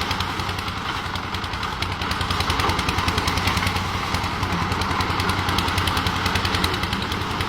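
Heavy machinery running steadily with a rapid, even chattering pulse over a low hum.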